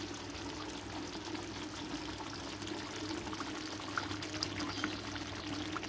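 Tomato sauce with sardines and potatoes simmering in a frying pan: a steady soft bubbling with a few small pops, over a faint steady hum.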